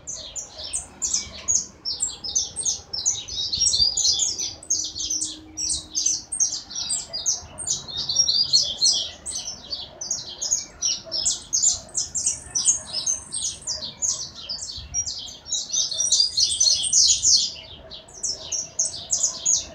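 Caged yellow songbird singing a long, continuous song of rapid high trills and warbles, with two held high notes about twelve and sixteen seconds in.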